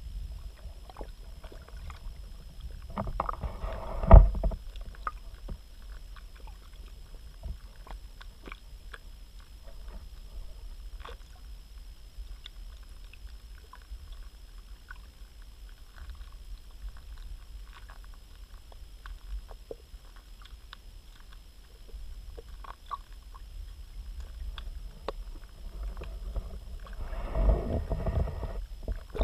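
Muffled underwater sound of pond water around a GoPro in its waterproof housing: a low steady rumble with scattered faint clicks and ticks. Louder sloshing swells come about three seconds in, ending in a sharp thump, and again near the end.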